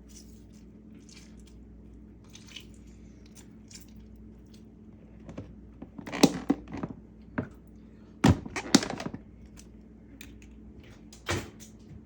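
Kitchen items being handled: soft rustling, then several groups of sharp knocks and clatters, the loudest about six and eight seconds in, and one more near the end.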